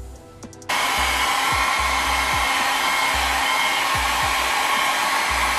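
Compact handheld hair dryer switched on about a second in, then running with a steady loud rush of air and motor hum.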